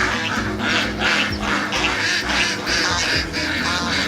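Ducks quacking in a quick series, about two to three quacks a second, over steady background music.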